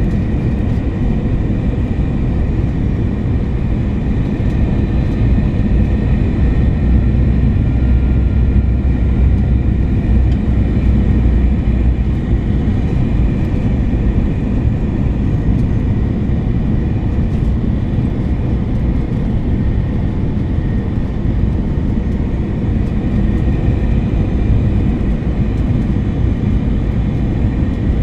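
Steady cabin noise inside an Airbus A321-200 airliner: a loud, even rumble of engines and airflow with a faint high whine of engine tones above it.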